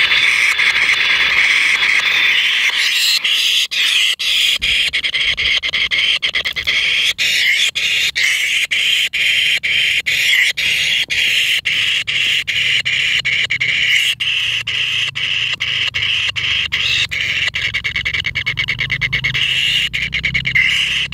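Kingfisher nestlings begging in their burrow nest: a loud, continuous, harsh rasping chorus broken into rapid pulses, while the chicks are fed rats.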